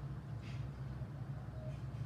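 A steady low hum with no other sound, apart from a faint short blip about half a second in.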